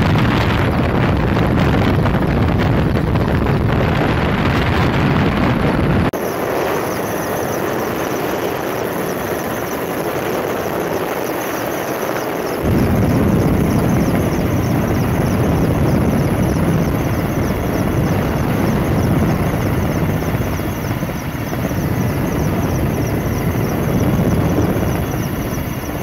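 Firefighting aircraft engine drone mixed with wind buffeting the microphone, a dense rumble that thins in the low end between about six and twelve seconds in. From about six seconds in, a fast, even, high-pitched ticking runs over it.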